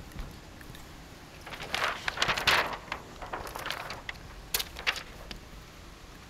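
Window tint film crinkling and rustling as it is handled and pulled back from the glass, densest for about a second and a half early on, then lighter crackles with two sharp clicks later.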